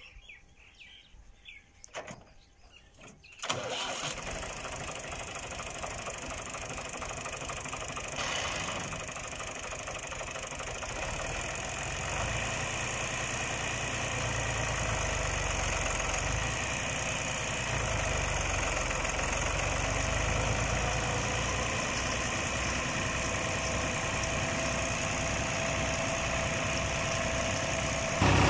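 Fiat 480 tractor's diesel engine starting about three and a half seconds in, catching at once, then running steadily at idle and slowly getting louder.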